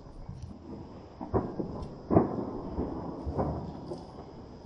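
Distant fireworks going off: a series of deep bangs, about four of them, with short rumbling tails. The loudest comes a little past two seconds in.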